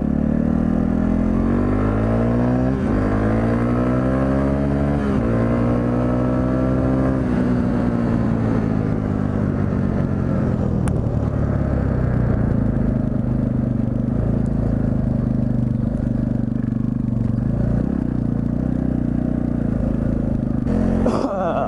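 Yamaha TT-R250 dirt bike's single-cylinder four-stroke engine accelerating through the gears: the pitch climbs, drops at a shift about three seconds in and again about five seconds in, climbs once more, then settles into steady running.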